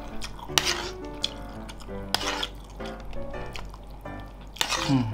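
Metal spoon clinking and scraping against a metal tray as it scoops sliced beef and rice, with several short scrapes and sharp clicks, over background music.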